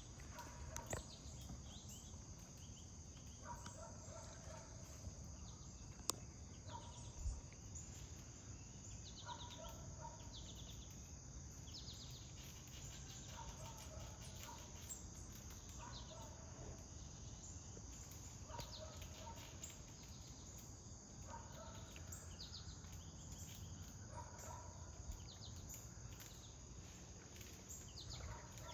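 Outdoor ambience: a steady high-pitched insect drone, with birds calling over it, a short call every two seconds or so, above a faint low rumble. One sharp click about six seconds in.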